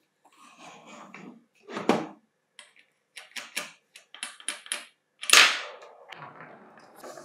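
Knocks, scrapes and quick clicks of an old Hitachi G18DSL cordless angle grinder being handled on a wooden bench, its steel wheel guard gripped and twisted by hand. There is a sharp knock about two seconds in, a run of clicks after that, and the loudest knock a little past halfway.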